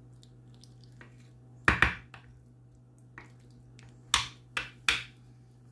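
Wooden spoon knocking against a ceramic baking dish while spreading macaroni and cheese: two sharp knocks about two seconds in, then three more a couple of seconds later.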